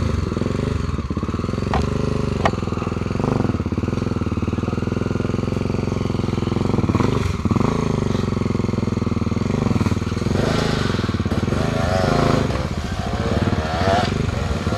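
Off-road motorcycle engine running close by, revving up and down with the throttle under load.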